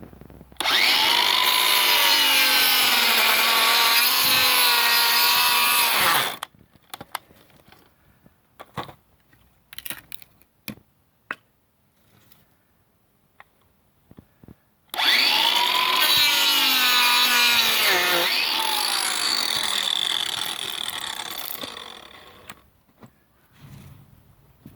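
Cordless angle grinder with a pruning disc cutting through branches: two cuts, each a high-pitched motor whine that sags in pitch as the disc bites into the wood and recovers. The second cut ends with the motor winding down slowly. Between the cuts come scattered clicks and knocks of wood being handled.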